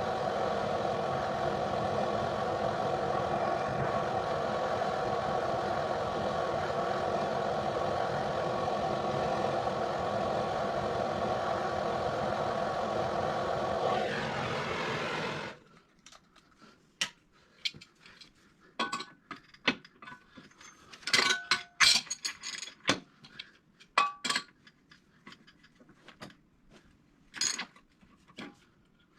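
Tractor engine running steadily, then shut off about halfway through. After it stops, scattered metallic clinks and taps.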